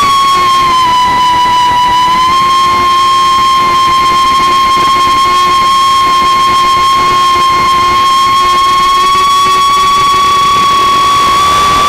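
Electric motor and propeller of a radio-controlled aircraft in flight, heard from its onboard camera: a loud, steady high whine that dips slightly in pitch about a second in, then holds level.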